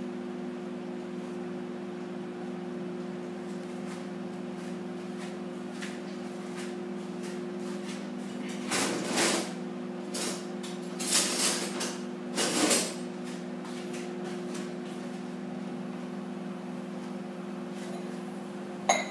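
Microwave oven running with a steady electrical hum while it cooks. Several short scraping or rustling noises come about nine to thirteen seconds in, and a sharp clink comes just before the end.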